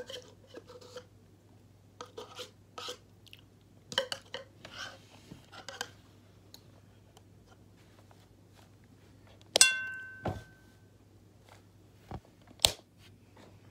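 Small clicks, scrapes and mouth noises of someone eating yogurt, then a sharp clink that rings briefly about nine and a half seconds in, followed by a few more sharp knocks.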